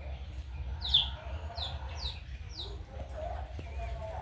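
Duckling peeping: a string of short, high peeps, each falling in pitch, over a steady low hum.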